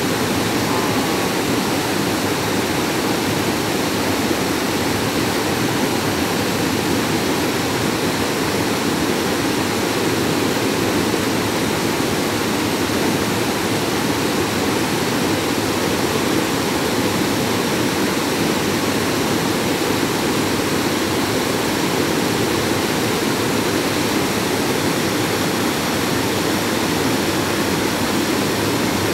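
Water pouring steadily over the small stepped travertine cascades of Havasu Creek, a continuous even rush at close range.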